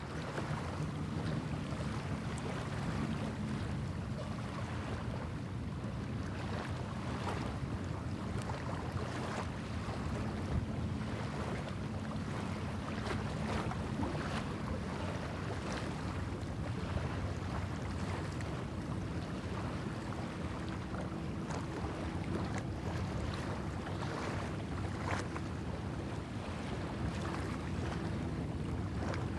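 Small waves lapping and splashing irregularly on a sandy lakeshore, over wind and a steady low hum.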